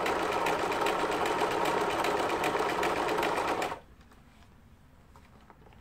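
A 30-year-old Lion L372 household sewing machine, freshly repaired, running at a steady speed as it sews a pattern stitch, with a fast, even rhythm of needle strokes. It stops abruptly a little past the middle.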